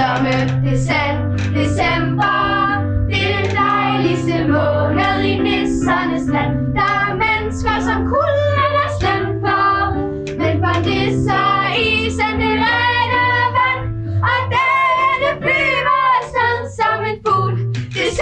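A song: young voices singing over instrumental accompaniment with a steady bass line.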